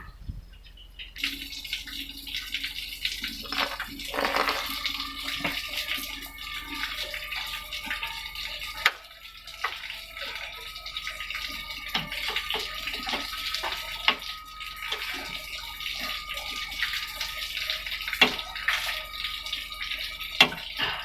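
Engine oil pouring and splashing into a container, with scattered small knocks.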